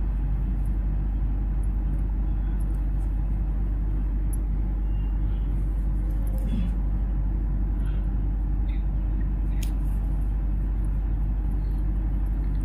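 A steady low hum that holds an even level throughout, with a few faint light clicks now and then.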